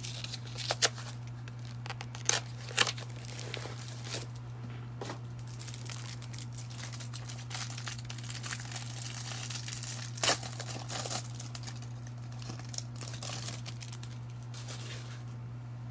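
Plastic wrapping of a baseball-card hanger box being torn open and crinkled by hand, in irregular crackles, the sharpest in the first few seconds and again about ten seconds in.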